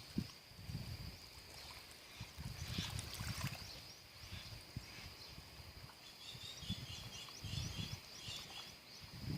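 Outdoor ambience: a steady high-pitched drone with irregular low rumbles, and a run of quick high chirps from an animal, a bird or insect, from about six seconds in.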